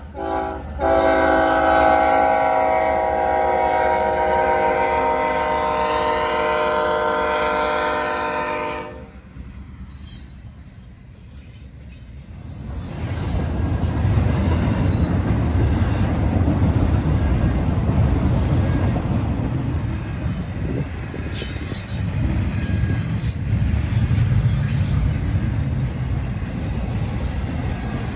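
BNSF intermodal freight train's locomotive horn sounding, a brief break just after the start, then one long blast that ends about nine seconds in. After a short lull, the double-stack container cars roll past with a steady low rumble and the clatter of wheels on rail joints.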